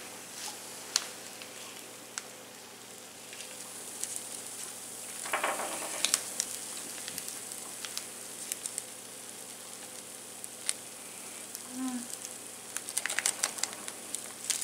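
Small plastic packet of bath bomb powder crinkling as it is shaken and squeezed empty over a ceramic mug. Scattered light clicks run through it, with a short rustle about five seconds in and a flurry of quick crackles near the end.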